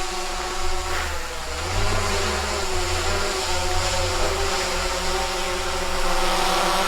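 DJI quadcopter drone hovering close by, its propellers giving a steady buzzing whine. A low rumble rises and falls through the middle.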